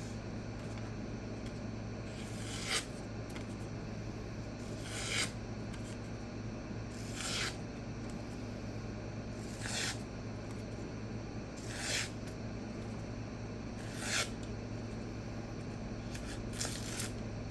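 Knife edge slicing paper in short scratchy strokes, about one every two seconds, seven or eight in all: a sharpness test of an edge that slices but will not quite push cut.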